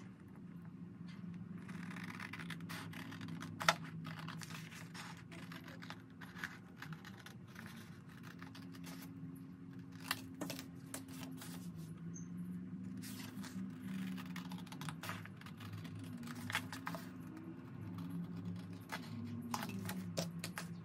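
Scissors cutting a printed paper sheet: irregular snips and clicks of the blades with the paper rustling as it is turned.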